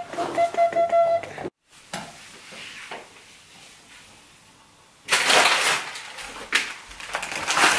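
A short steady tone with handling noise at the start, then after a break, a brown paper grocery bag rustling and crinkling as it is handled, loud from about five seconds in.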